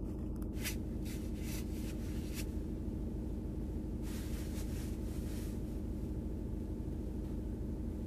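Steady low hum with brief rustling noises about half a second in, a few more between one and two and a half seconds, and a longer stretch from about four to five and a half seconds in.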